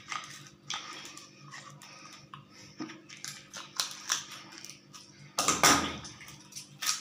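Kitchen scissors snipping through a catfish's belly, with wet handling of the fish: a string of irregular clicks and snips, and a louder bump of handling about five and a half seconds in.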